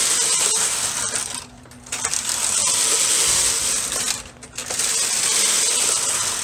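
Brother KH-260 bulky knitting machine carriage pushed across the needle bed three times, knitting three rows of two-colour Fair Isle pattern. Each pass is a loud, steady rattling rush, with a brief pause between passes about a second and a half in and again at about four and a half seconds.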